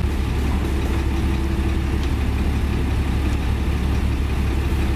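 Heavy diesel engine idling with a steady, even low rumble.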